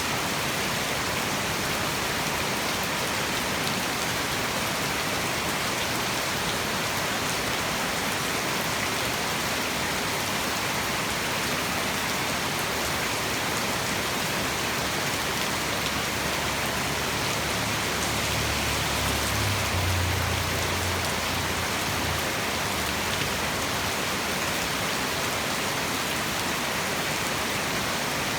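Heavy tropical rain falling steadily, a dense even hiss. About two-thirds of the way through, a low rumble swells for a few seconds and fades.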